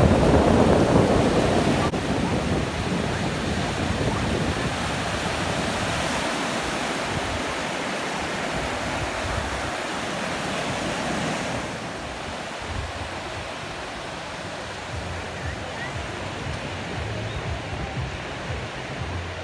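Sea waves breaking and washing up a sandy beach, a steady rush of surf, with wind on the microphone. It gets quieter about two-thirds of the way through.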